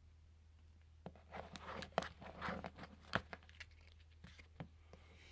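Trading cards in clear plastic holders being handled and set down: a few seconds of rustling and scraping with several sharp plastic clicks, over a faint low hum.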